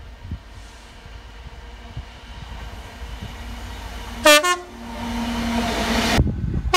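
Train horn sounding a short blast about four seconds in, its pitch bending up as it starts, after a low rumble. The sound of the train then grows louder, with a steady low tone, and cuts off suddenly. Another brief horn blast comes at the very end.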